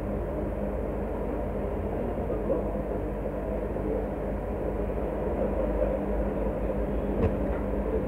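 A steady low mechanical hum and rumble, with a light click about seven seconds in.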